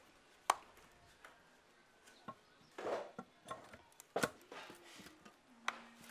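Turbocharger and cast-iron exhaust manifold of an Isuzu 4JB1 engine being handled and fitted together by hand: about six short, sharp knocks and clinks, the loudest about half a second in and just after four seconds, with a brief scraping rub around three seconds.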